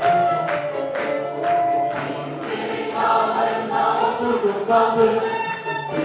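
A Turkish classical music choir and instrumental ensemble performing a march, with percussion strikes about twice a second through the first couple of seconds.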